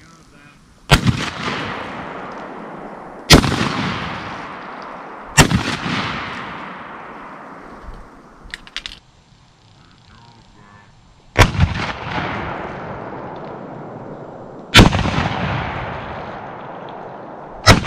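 Six shotgun shots from a Benelli: three about two seconds apart, a pause of about six seconds, then three more about three seconds apart. Each is a sharp crack followed by a long echo that dies away over a couple of seconds.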